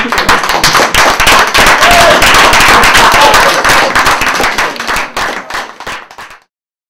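Audience applauding: loud, dense clapping that thins out after about five seconds and cuts off suddenly a little after six seconds.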